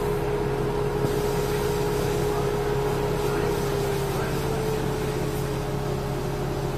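Steady mechanical hum, a low drone with a higher steady tone above it that shifts slightly in pitch about four seconds in.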